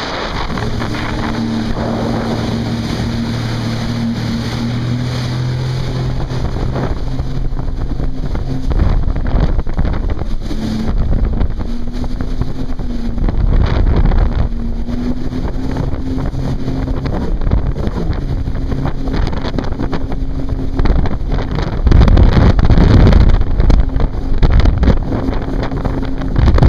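Jet ski engine running at speed, its pitch rising and falling with the throttle, heard from aboard with wind buffeting the microphone and water rushing past. The wind and rumble are loudest near the end.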